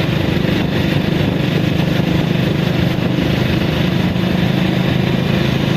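A vehicle engine running steadily at an even speed, with no change in pitch.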